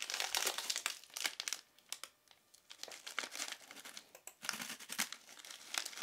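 A crinkly snack wrapper being handled and torn open, a dense run of irregular crackles that thins out after a second or so.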